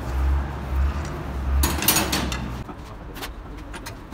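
Metal hand tool knocking and clicking against an inline diesel injection pump held in a vise, with a clatter about two seconds in and scattered light clicks after it. A low rumble sits underneath and fades partway through.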